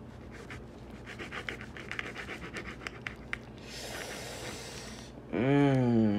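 Plastic chorizo casing scratching and crinkling as it is cut and the chorizo squeezed out: quick scratchy scrapes, then a short rustle. Near the end a man lets out a loud, drawn-out vocal sound that falls in pitch.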